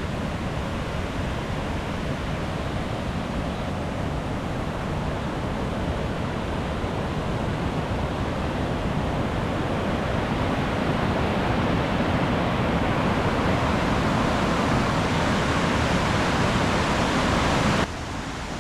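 Steady rush of the Housatonic River's rapids and waterfalls, growing slowly louder, then dropping suddenly to a quieter rush near the end.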